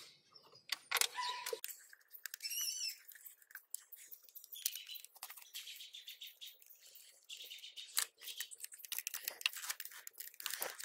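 Small plastic clicks and rattles as the distributor cap of a Toyota 4A-FE engine is handled and fitted back onto the distributor, with its spark plug wires rustling. A bird chirps briefly about two and a half seconds in.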